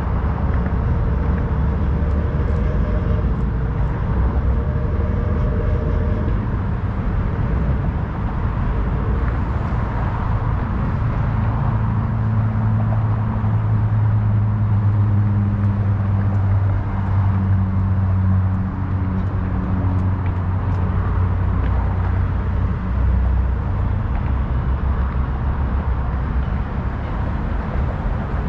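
Steady city traffic noise from a busy road. Between about a third and two thirds of the way through, a low engine hum comes to the front.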